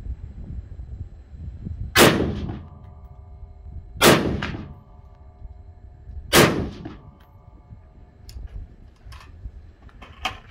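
Three shots from a Lead Star Arms Grunt AR-15 pistol with a 10.5-inch barrel, chambered in .223 Wylde, fired about two seconds apart. A ringing tone lingers after the shots. Light clicks near the end as the gun is handled.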